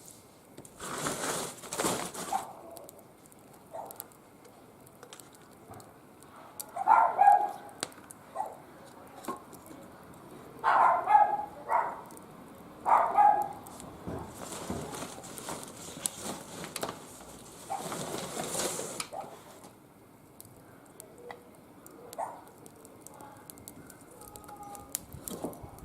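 Short animal calls, loudest in three groups about 7, 11 and 13 seconds in, between two stretches of hissing, rustling noise.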